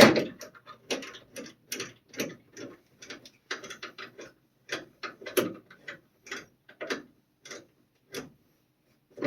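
A loud metallic clank, then a string of irregular light clicks, about two or three a second, from a hand ratchet working a bolt on a car's rear trailing arm and coilover mount.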